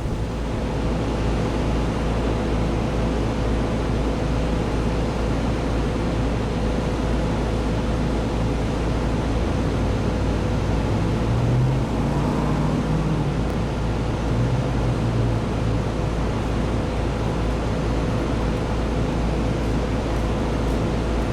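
Steady, even engine-like rumble with a constant hum over it, with a few brief low tones rising out of it about halfway through.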